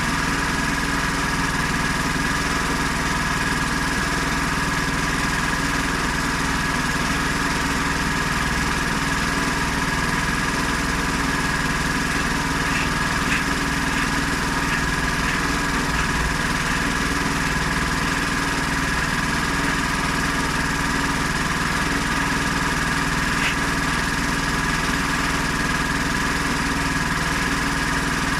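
Honda GX390 single-cylinder four-stroke petrol engine on a homemade portable sawmill, running steadily at an even speed, with a few faint ticks about halfway through.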